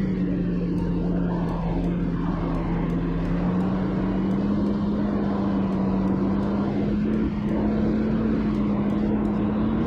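Isuzu NPS 75-155 4x4 truck's turbo-diesel engine droning steadily as it drives up a gravel track, with its pitch rising slightly a few seconds in.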